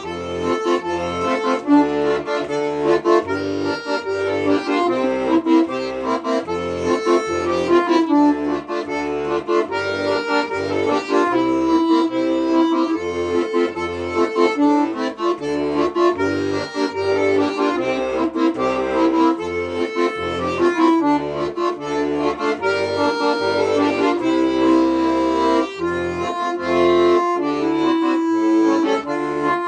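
Solo accordion playing an instrumental tune: a right-hand melody over short, rhythmic left-hand bass notes and chords.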